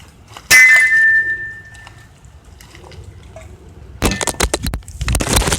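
Glass struck hard with a sharp clink about half a second in, ringing on for over a second. Near the end comes a quick run of clattering knocks.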